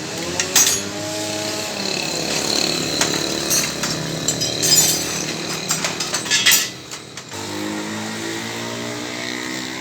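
A motor running steadily, with several sharp metallic clanks; it drops away briefly about seven seconds in, then runs on steadily.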